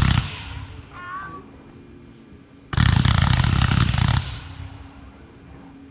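World Class Fireworks 'Peacock' cake firing: a loud rushing blast fading out right at the start, then another sudden rushing blast about three seconds in that lasts about a second and a half and tails off. A brief high wavering tone sounds about a second in.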